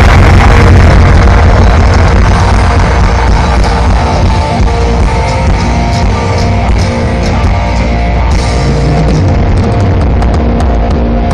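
Grindcore band playing loud live through an outdoor stage PA: distorted guitars, bass and drums with no break.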